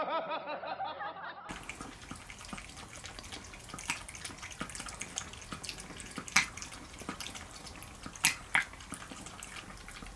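White Pomeranian lapping and chewing rice cake soup from a bowl: irregular wet smacks and small clicks, a few sharper ones standing out. A short pitched sound at the very start cuts off abruptly after about a second and a half.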